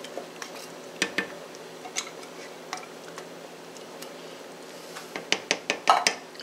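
Silicone spatula scraping and tapping inside a tin can of condensed soup, scattered light clicks and knocks. Near the end comes a quicker run of knocks as the emptied can is set down on the counter.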